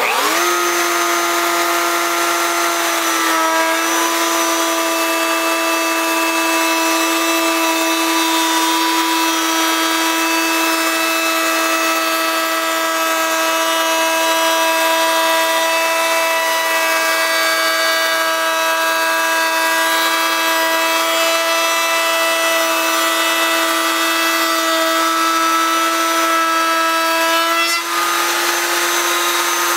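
Loud Bosch fixed-base router switched on, its whine rising sharply as the motor spins up, then running steadily while a round-over bit cuts a profile along the edge of a poplar board. The pitch drops slightly about three seconds in as the bit bites into the wood and lifts again near the end as the cut finishes.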